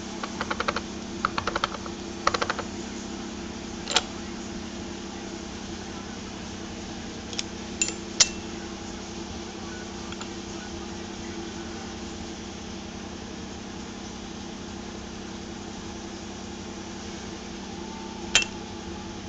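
Clicking from an unidentified device over a steady low hum: rapid runs of clicks in the first couple of seconds, then a few single sharp clicks, three close together around eight seconds in and one near the end.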